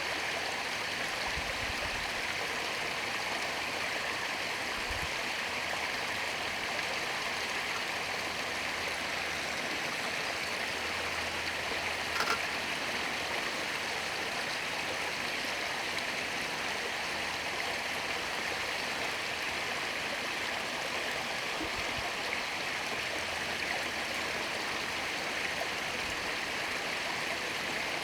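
Steady rushing of a stream or small waterfall, with a single short click about twelve seconds in.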